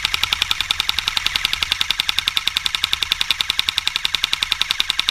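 Airsoft rifle firing a long full-auto burst of covering fire: a fast, even rattle of shots, roughly a dozen a second, that does not let up.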